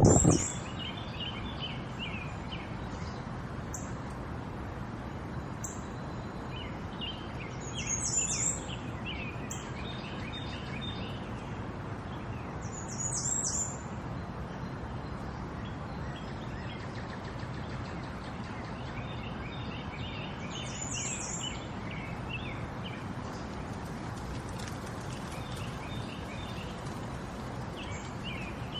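Small songbirds chirping and twittering again and again over a steady rush of running water, with a few louder, very high calls spread through.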